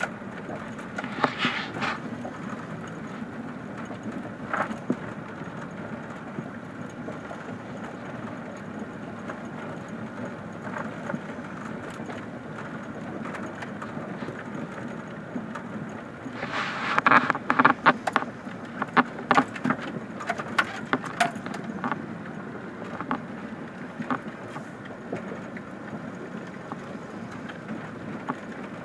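A vehicle driving slowly over a rough gravel track, heard from inside the cab: steady engine and tyre noise, with a cluster of sharp rattling knocks from about halfway through, lasting around five seconds.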